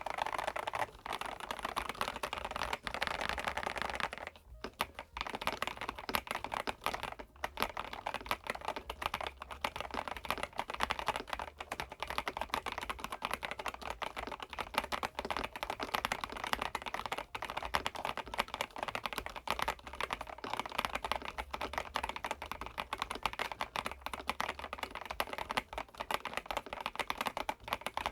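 Typing on the EPOMAKER DynaTab 75X, a gasket-mounted mechanical keyboard with Epomaker Flamingo switches: fast, continuous keystroke clacks, with brief pauses about four and seven seconds in.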